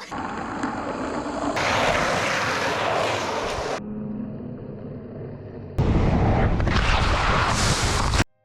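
Rushing wind and rolling-wheel noise at speed, heard through a helmet camera while downhill skateboarding, in several clips that cut abruptly from one to the next. The middle clip carries a steady low hum.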